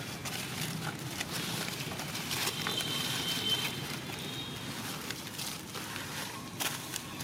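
Dry leaf litter crackling and rustling as macaques move over it, with scattered small clicks over a steady outdoor background. A thin high steady tone sounds for about two seconds in the middle.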